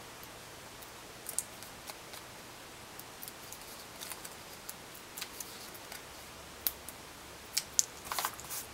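Faint, scattered small clicks and rustles of fingers handling a cardstock frame while peeling the backing off foam adhesive dimensionals and pressing them on, with a short cluster of clicks near the end as the frame is set down on the table.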